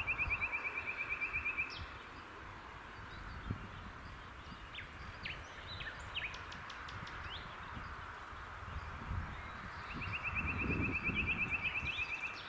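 Songbird singing a dry trill of rapid, even notes, about two seconds long, heard twice: at the start and again near the end. Other birds give short chirps in between.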